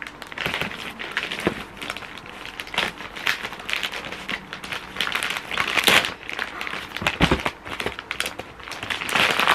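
Plastic security mailer bag crinkling and rustling irregularly as it is handled and opened by hand.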